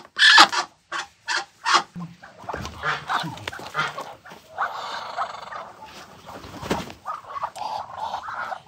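Muscovy duck giving a rapid series of short, loud calls while it is handled, about six a second, stopping about two seconds in. Softer scuffling, wing flapping and quieter calls follow.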